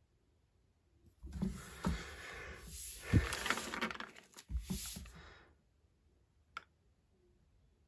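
Rustling and handling noise for about four seconds, with several sharp knocks mixed in, then a single click near the end.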